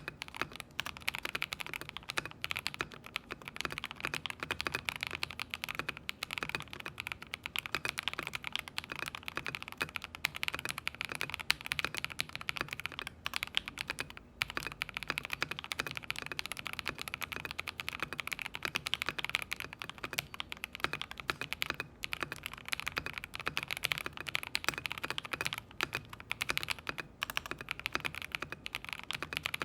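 Continuous fast typing on a 75% mechanical keyboard with lubed Akko Radiant Red linear switches: a dense, steady stream of keystrokes.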